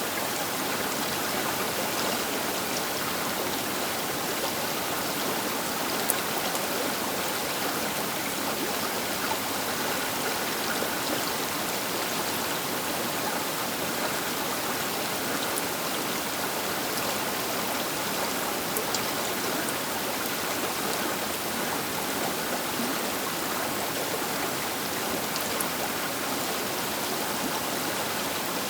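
River water rushing and splashing along the bank in a steady, even rush, with faint small clicks of spray now and then.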